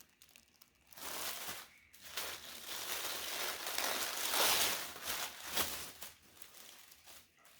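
Wrapping around a folded T-shirt crinkling and rustling as it is handled and pulled open. It starts about a second in, runs on unevenly, is loudest around the middle, and dies away shortly before the end.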